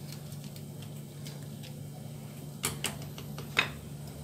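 A few light clicks and taps from green chillies and a small knife being handled over a ceramic plate, sharpest three times between about two and a half and three and a half seconds in, over a steady low hum.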